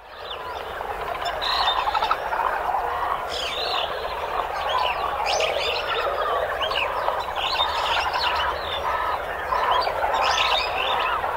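Night chorus of many frogs calling at once, a dense, steady mass of overlapping calls with scattered higher chirps.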